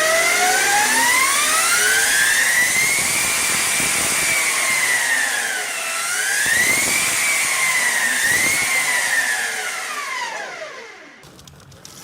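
Electric motorcycle's motor whining as it accelerates, its pitch climbing steadily, then dipping and climbing again twice under throttle. Near the end the whine glides down and fades away.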